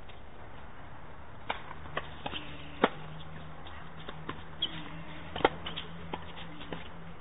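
Tennis rally on a hard court: sharp pops of the racket striking the ball and the ball bouncing, a few seconds apart and loudest twice, with softer footsteps and shoe scuffs between. A steady low hum comes in about two seconds in.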